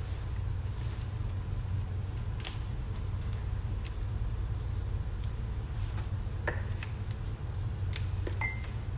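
Jute mallow (saluyot) leaves being picked off their stems by hand, giving a few faint snaps and rustles, over a steady low hum.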